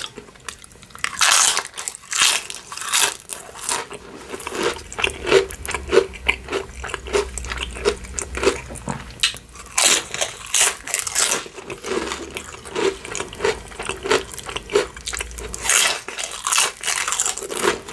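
Crispy poke nachos being bitten and chewed close up: a long, irregular run of sharp crunches, several a second.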